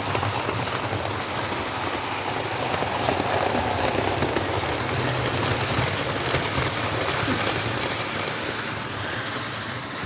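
Model train running on a layout: a steady rumble and rattle of wheels on the rails and the motor's hum. It swells a little as the coaches pass close by, then eases near the end.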